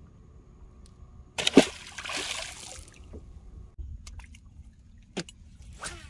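Water splashing and sloshing, starting suddenly about a second and a half in and dying away over about a second and a half, followed by a few sharp knocks.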